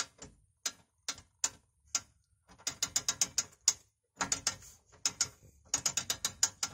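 Sharp metallic ratchet-like clicking: a few single clicks about half a second apart, then quick runs of several clicks a second with short pauses between them.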